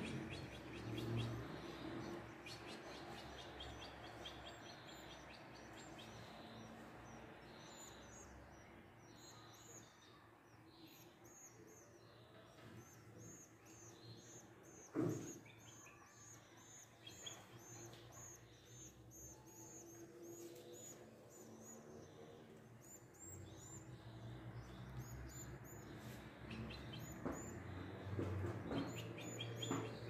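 Faint, rapid, high-pitched begging chirps of canary nestlings being fed, with a single thump about halfway through.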